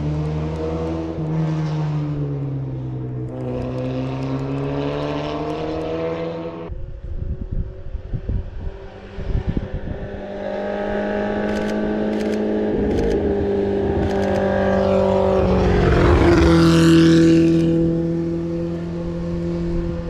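Engines of classic rally cars running on a mountain road, the note rising and falling as they climb. The sound changes abruptly about a third of the way in, then a car passes close and loudest near the end, its engine note dropping as it goes by. A few sharp clicks come in the middle.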